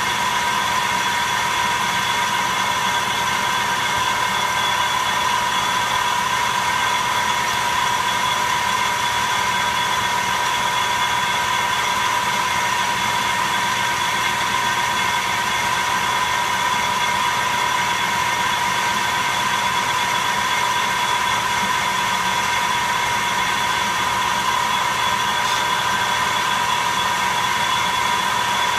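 Metal lathe running at a steady speed with its chuck and workpiece spinning, giving a constant high whine over an even hum and hiss.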